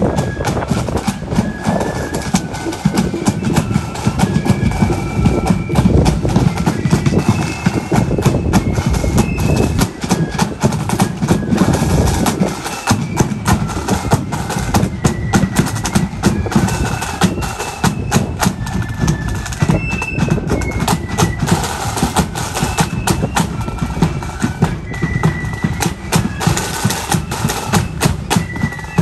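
Marching flute band playing a tune: a high flute melody moving note by note over snare drums rattling out a steady march beat.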